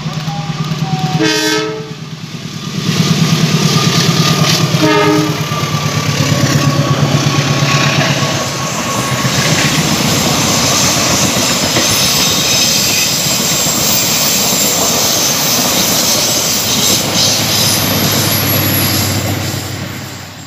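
A CC204 diesel-electric locomotive sounds its horn twice, about a second in and again around five seconds, over its running engine. Then the passenger coaches pass close by, wheels clattering on the rails, and the noise fades away near the end.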